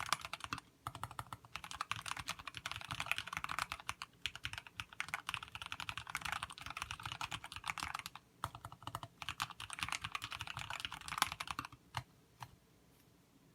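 Typing on a TX60 mechanical keyboard with Kailh Box Black linear switches, lubed with Krytox 105 and topped with MT3-profile keycaps: fast runs of keystrokes with a few short pauses, ending with two last strokes about twelve seconds in.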